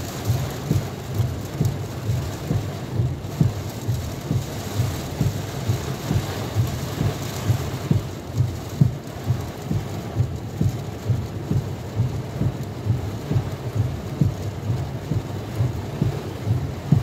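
Heavy squall-line rain beating on a car's windscreen and bodywork, heard from inside the car as a steady rush, with low thumps about twice a second.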